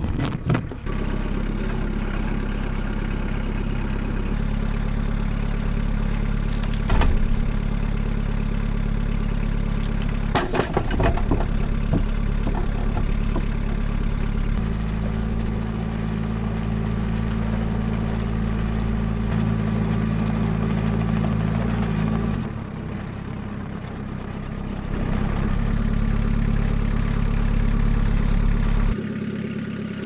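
An engine running steadily, its note shifting about halfway through and easing off briefly a few seconds later before picking up again, with a few sharp knocks early on.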